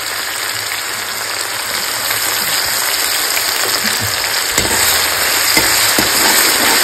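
Hot oil sizzling steadily in a kadai as curry-base ingredients fry toward light brown, with a few spoon scrapes against the pan about two-thirds of the way in.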